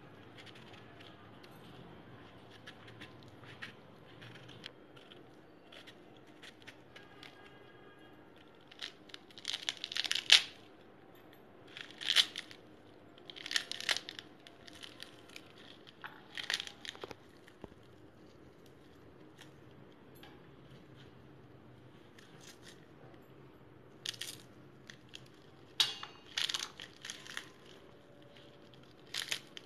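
Pomegranate rind and pith being torn apart by hand, heard as short bursts of tearing and crackling a few seconds apart, with a lull in the middle.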